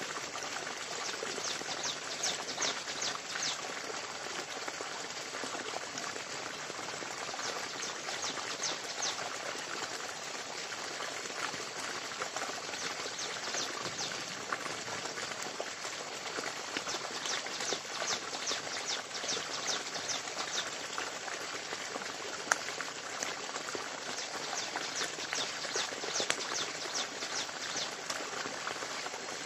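Forest ambience: a steady hiss with recurring runs of rapid, high-pitched chirping calls, and a single sharp snap about two-thirds of the way through.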